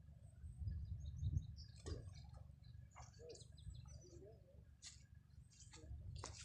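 Birds chirping in short, scattered calls over a low, steady rumble.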